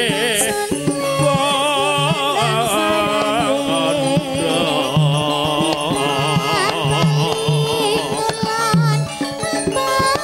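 Live campursari band playing: a wavering, vibrato-laden melody over low drum strokes that recur every second or so.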